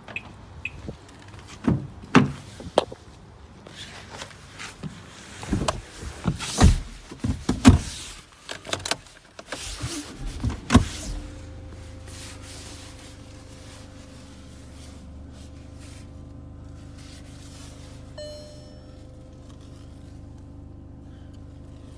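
Car door knocks and clicks with rustling as someone opens the driver's door and climbs in, ending in a loud shut about halfway through. Then the Skoda Octavia's 1.6 TDI diesel engine runs at a steady idle, heard from inside the cabin, with a brief electronic beep near the end.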